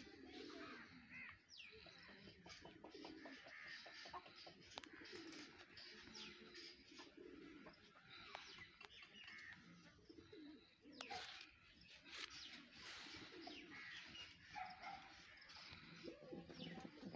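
Domestic pigeons cooing faintly, soft low calls repeated throughout, with thin higher chirps of small birds mixed in and a couple of brief rustles about two-thirds of the way through.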